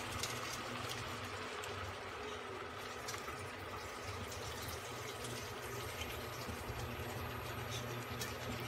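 Kimchi sauce simmering and bubbling in a frying pan under a heap of udon noodles, with small scattered pops, as the sauce is left to cook down.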